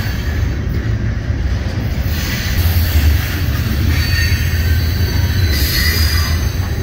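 Loaded ballast hopper cars of a rock train rolling past close by: a heavy, steady rumble of wheels on rail, with thin high wheel-squeal tones coming and going.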